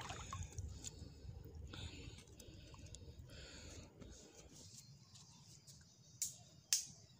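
Faint sloshing of a person wading through shallow seawater over seagrass, then two short sharp clicks about a second apart near the end.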